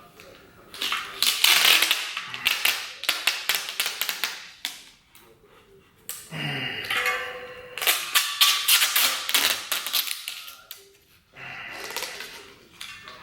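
Tubeless rim tape peeling off its roll under tension as it is wrapped tight around a bicycle rim: a crackling, ripping sound in three runs of a few seconds each, with short pauses between.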